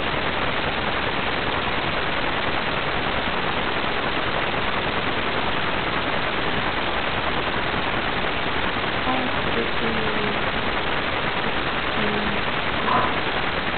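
Steady, even hiss like static, holding a constant level, with a few faint, brief sounds in the last few seconds.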